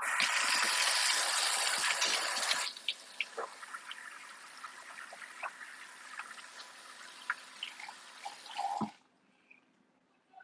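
Kitchen sink tap turned on to a full stream, which goes quieter about two and a half seconds in as hands are washed under it, with small splashes and clicks, and is shut off about nine seconds in.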